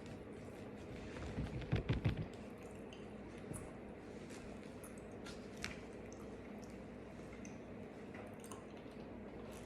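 Close-up wet chewing and squishy mouth sounds of a person eating. A short run of about five louder chews comes about a second and a half in, then softer clicks and smacks over a steady low hum.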